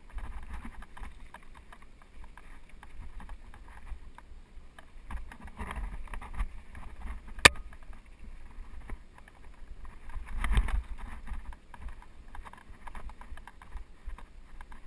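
Mountain bike rolling down rocky dirt singletrack: tyres rumbling over dirt and stones, with the bike rattling over the bumps. A single sharp click comes about seven and a half seconds in, and a louder rumble over a rough patch about ten and a half seconds in.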